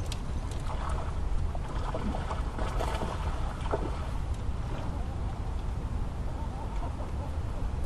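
Steady low wind rumble on the microphone, with scattered light clicks and rustles as a landed fish and fishing tackle are handled close by.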